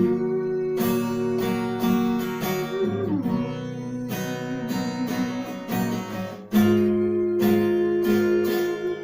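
Acoustic guitar strumming sustained chords, with a fresh loud strum about six and a half seconds in.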